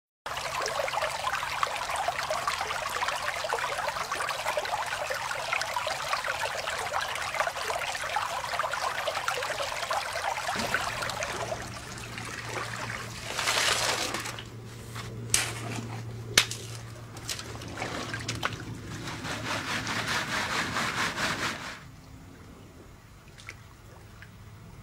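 Shallow creek water rushing and splashing as gravel is dug and scooped with a shovel, with a few sharp knocks partway through. It drops to a quieter trickle near the end.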